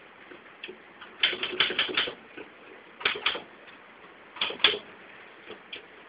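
Manual typewriter keys striking in short runs: a quick run of about six strikes, then two pairs of strikes and a few faint single taps.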